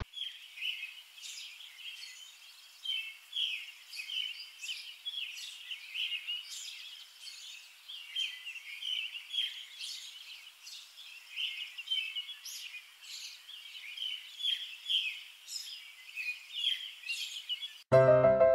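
Small birds chirping over and over, a continuous outdoor birdsong chorus. Near the end it cuts off and a piano tune begins.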